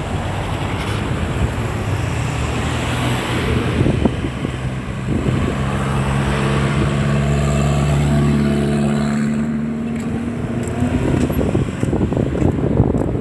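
Road traffic: a car engine running with a steady hum that shifts in pitch partway through, over tyre and road noise. The hum fades out about ten seconds in, leaving rougher rushing noise.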